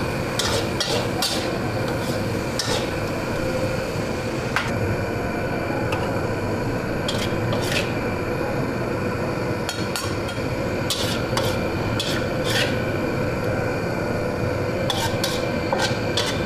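Spatula scraping and turning food in a wok during a stir-fry of squid and celery, with scattered sharp clinks of the spatula against the pan.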